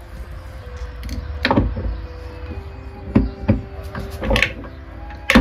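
Gear shaft of a Subaru Justy five-speed manual gearbox being fitted back into the transmission case by hand: a series of about five sharp metal clunks and clinks as the gears knock against the case and each other, the loudest near the end.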